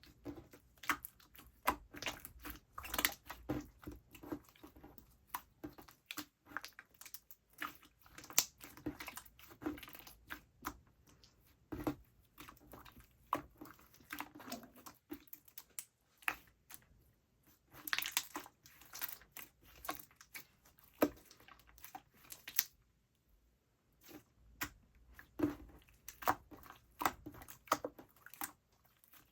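Slime being squeezed, poked and stretched by hand, giving irregular sticky clicks, pops and crackles. There are two brief pauses.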